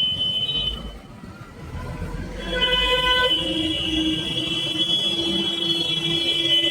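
Road traffic with vehicle horns: a brief horn at the start and a low engine rumble of a passing vehicle, then from about two and a half seconds in a horn held down in one long steady blast.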